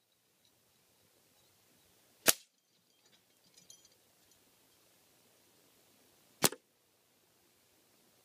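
Two sharp shots from a pre-charged pneumatic air rifle, about four seconds apart. After the first comes a faint metallic clatter from the knock-down target.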